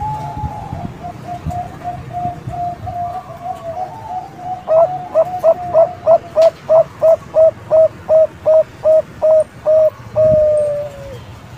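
Young Bangkok-strain zebra dove (perkutut) cooing: a soft run of quick notes, then about fifteen loud clipped coos at about three a second, ending in one longer falling note.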